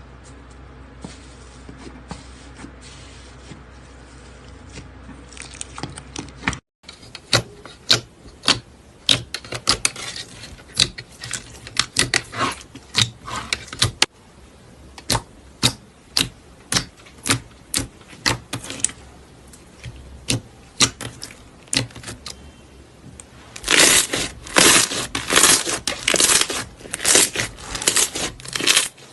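Slime being squeezed and poked by hand, making sticky clicks and pops about three a second, with a denser, louder run near the end. The first few seconds hold only softer crackles over a low hum.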